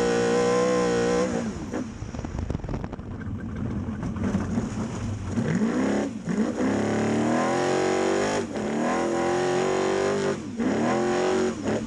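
Engine of a Geiser Brothers trophy truck heard from inside the cabin while it is driven hard. The revs are held high, then drop off a little over a second in. After a rougher, lower stretch they climb three times, with a brief dip between each climb.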